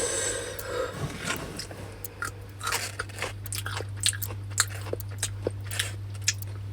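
Someone chewing and crunching a crunchy snack close to the microphone, in irregular crisp crunches, over a steady low hum.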